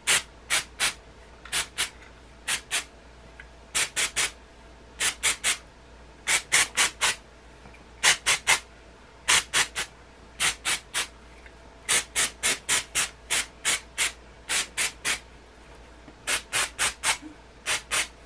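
Aerosol dry shampoo can spritzed onto hair in many short hisses, in quick runs of two to four about once a second.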